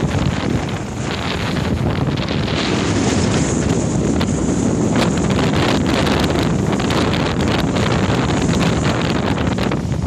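Strong gusting wind buffeting the microphone in winds of up to 80 km/h, over choppy harbour water with waves splashing.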